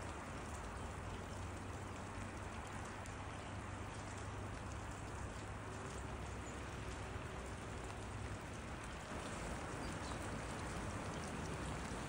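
Steady rain falling, with water dripping off a roof edge.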